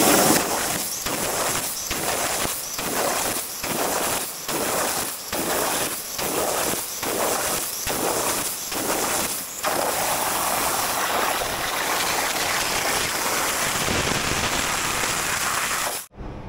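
CNC plasma cutter torch cutting 3/8-inch steel plate: a steady hiss that pulses in level a little more than once a second for about the first ten seconds, then runs even until it cuts off abruptly near the end.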